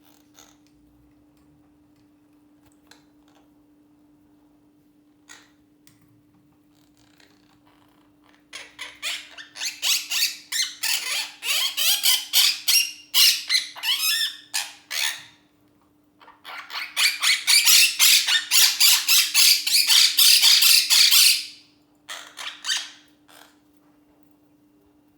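Pet parrots giving rapid, harsh squawks in two long runs: the first a quick string of separate pulses starting about a third of the way in, the second denser and louder, with a few more squawks near the end.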